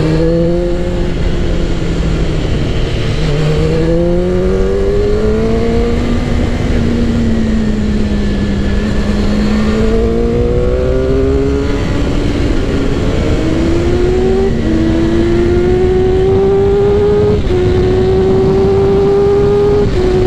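Suzuki GSX-R 600's inline-four engine and exhaust under way, pulling up through the gears: the pitch climbs, holds and wavers for a few seconds mid-way, then climbs again with a short dip at each of several upshifts. A low rush of wind runs underneath.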